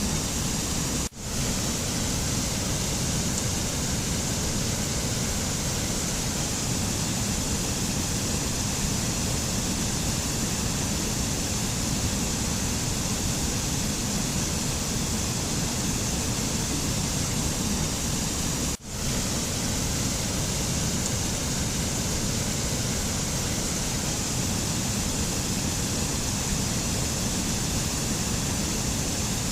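Steady, even rushing noise of a mountain nature-sound ambience, with no pitch or rhythm in it. It cuts out for a split second twice, about a second in and again about two-thirds of the way through.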